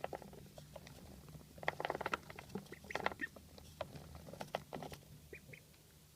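Duckling wheezing: crackly, rattling breaths that come as about three bursts of rapid clicks, with two short high notes near the end.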